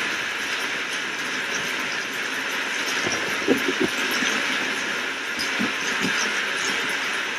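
Steady rain hiss, with a few short low knocks about halfway through.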